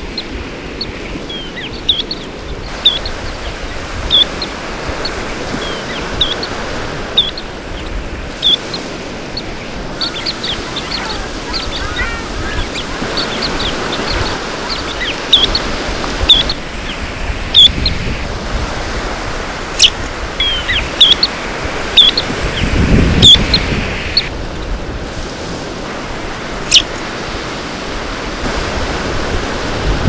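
Small shorebirds giving many short, high chirping calls, scattered irregularly, over the steady wash of surf. A louder low rush of noise comes about three-quarters of the way through.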